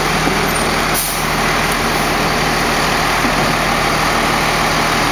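Rear-loading garbage truck's diesel engine idling steadily.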